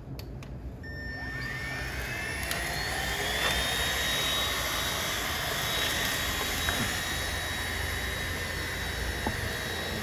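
Tefal X-Force Flex cordless stick vacuum running on a wooden floor. Its motor whine climbs in pitch over the first few seconds, then holds steady and high over the rush of suction.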